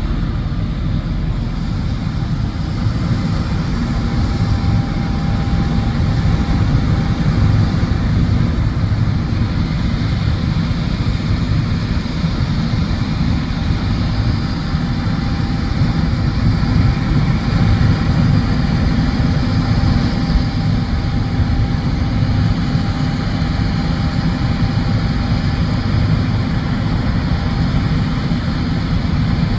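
John Deere combine running steadily while harvesting soybeans: a constant low drone with a faint steady whine above it.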